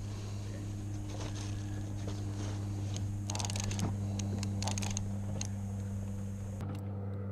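A boat's motor running steadily at idle, a low even hum. Short rustles and clicks of gear being handled come over it several times.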